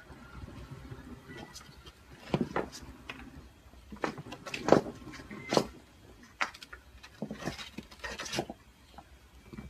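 A kitten's claws scrabbling and scratching at a wooden windowsill and wall as it hangs and tries to climb up: a run of short scrapes and taps, the loudest about halfway through.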